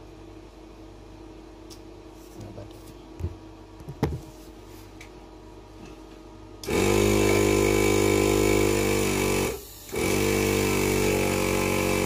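A few light handling knocks, then a small electric air compressor starts up and runs steadily, pumping up the scooter's tubeless tyre; it cuts out briefly and starts again.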